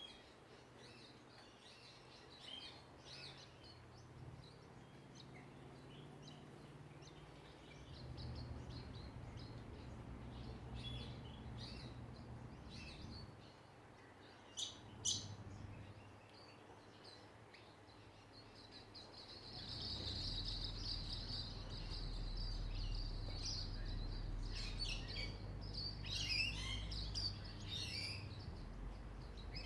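Australian songbirds calling, with many short high chirps and notes throughout. Two sharp, loud calls come about halfway through, a steady high trill runs for a couple of seconds about two-thirds in, and a busy burst of calls follows near the end. A low rumble runs underneath.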